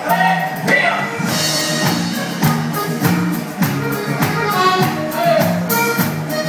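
Live dance band playing an upbeat song: a steady beat of about two strokes a second under a repeating bass line, with a vocal and melody instruments on top.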